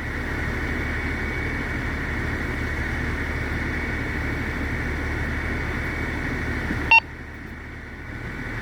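A two-way radio keyed open with no one speaking: a steady rush of background noise carried over the channel, cut off by a short beep about seven seconds in when the transmission ends.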